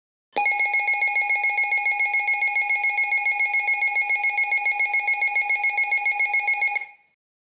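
Emergency alert attention tone: a loud electronic tone of two steady pitches, one middle and one high, pulsing rapidly for about six and a half seconds, then cutting off.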